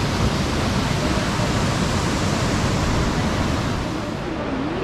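Waterfall rushing steadily, a loud, even roar of falling water.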